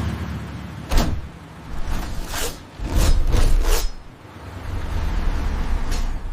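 Cinematic action sound effects over a low rumble: a sharp hit about a second in, then a run of fast whooshing mechanical sweeps, and another short hit near the end.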